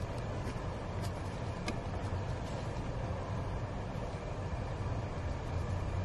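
A steady low rumble, with a few faint plastic clicks about a second and a second and a half in as a car's wiring connector is worked by hand under the dashboard.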